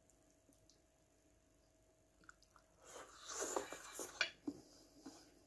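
A person chewing a mouthful of food close to the microphone, starting about three seconds in after a near-silent stretch.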